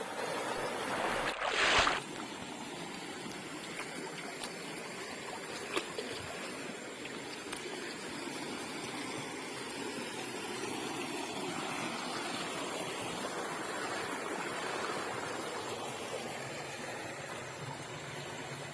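River water flowing steadily, after a brief loud noise about a second and a half in.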